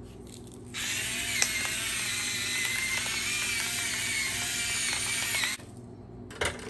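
Stainless steel salt and pepper grinder grinding seasoning over raw salmon fillets: a steady grinding sound that starts about a second in and stops suddenly near the end.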